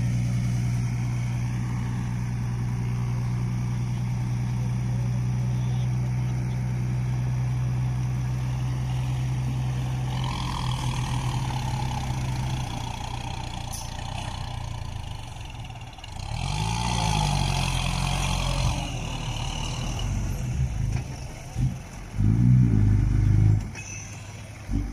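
Diesel engine of a six-wheel dump truck running at a steady speed while its tipper bed is raised to dump a load of soil. Past the middle the engine note shifts and wavers under a few seconds of rushing noise, and near the end it revs in short uneven surges.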